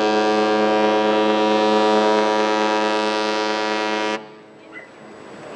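Ship's horn sounding one long, steady blast that cuts off sharply about four seconds in, as the AIDAmar cruise ship leaves port.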